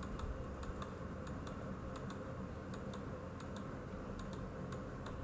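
Light, sharp clicking on a computer, often in close pairs, a few clicks each second, over a low steady background hum.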